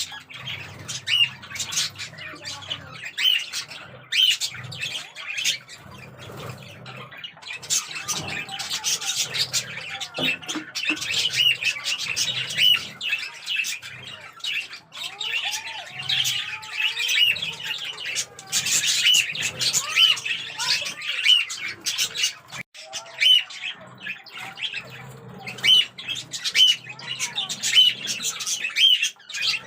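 A group of budgerigars chirping and chattering continually, with quick, overlapping warbled notes.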